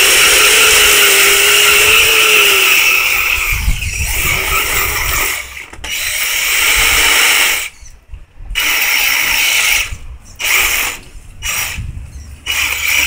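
RC 6x6 rock crawler's motor and drivetrain whining as it climbs. It runs steadily for the first few seconds, then comes in short stop-start bursts with brief silent gaps as the throttle is worked.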